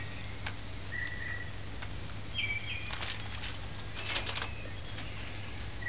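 Several short, high bird chirps in the background over a low steady hum, with a few faint clicks.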